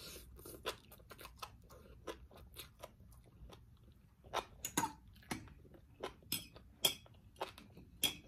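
Close-up eating sounds: a person chewing a mouthful of fresh greens and grilled fish, with irregular wet clicks and lip smacks, a few louder smacks in the second half.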